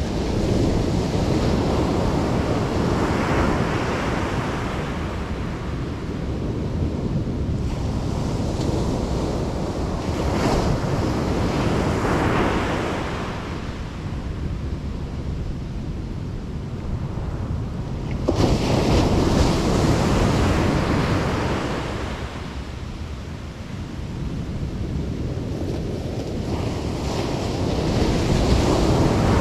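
Ocean surf: waves breaking and washing up the beach, the rush swelling and fading every several seconds. One wave crashes in suddenly about two-thirds of the way through.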